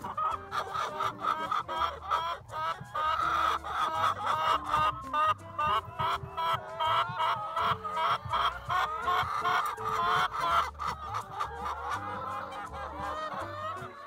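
Brown laying hen calling from her nest, a fast unbroken run of short clucks several times a second, over background music. The calling dies away near the end, leaving the music.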